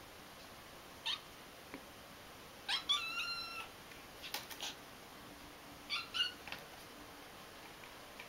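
Tabby kitten giving three high-pitched cries: a short one about a second in, a longer wavering one near three seconds, and another around six seconds. A few short sharp noises fall between the second and third cries.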